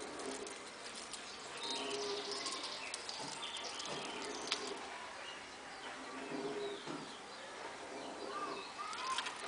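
Three-toed sloth chewing a cecropia leaf: scattered soft crunching clicks, against repeated short pitched calls in the background.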